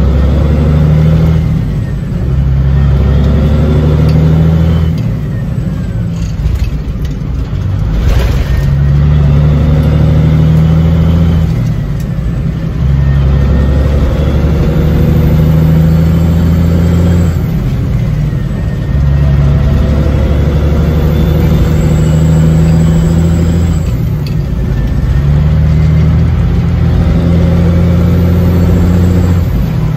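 Peterbilt 359's diesel engine heard from inside the cab, pulling hard through the gears of a twin-stick transmission. It holds a steady note for a few seconds, then briefly drops off at each shift before pulling again, several times over.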